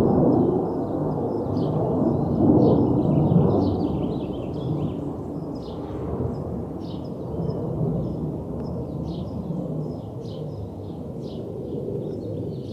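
Aircraft flying overhead: a deep, rumbling engine noise that is loudest in the first few seconds and then slowly fades. Small birds chirp over it.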